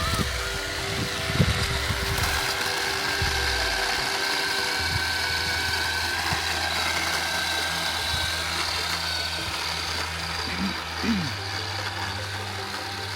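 Petrol chainsaw idling steadily, with a short rise and fall in engine pitch near the end.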